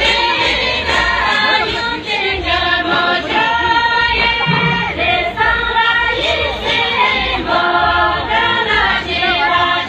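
A group of women singing a Tamang folk song together in unison, their voices holding and sliding through long notes.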